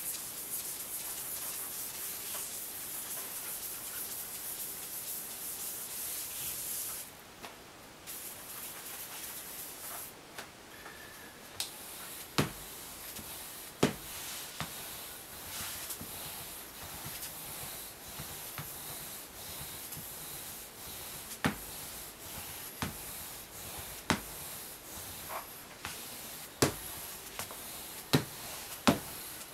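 Hand ink roller rolled back and forth over a lithographic stone to ink the image, a steady tacky hiss. It drops quieter about seven seconds in. In the second half sharp knocks come every second or so.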